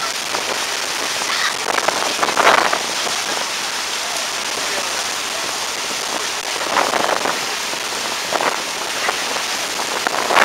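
Steady rushing hiss aboard a moving ferry, water washing past the hull mixed with wind, swelling in a few louder surges.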